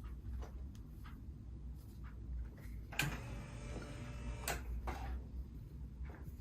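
Joints cracking during a chiropractic adjustment: a few faint clicks, then two sharp, louder cracks about three and four and a half seconds in.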